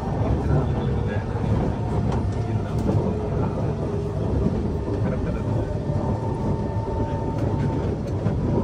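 Kawasaki C151 metro train running on the line, heard from inside the carriage: a steady low rumble of wheels on rail with a faint high whine in the second half.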